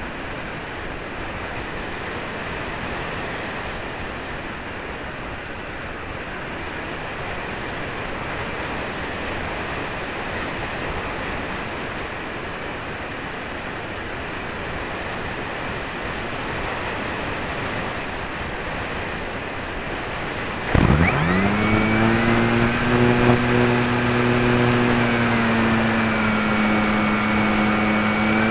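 Wind rushing over the wing-mounted keychain camera of an RC glider gliding with its motor off. About 21 seconds in, the glider's electric motor and propeller start with a quick rise in pitch and then run steadily with a whine that is louder than the wind.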